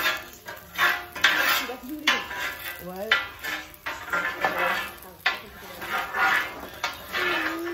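Metal cooking utensils clanking and scraping on a griddle as food is stirred, in a run of irregular sharp strokes.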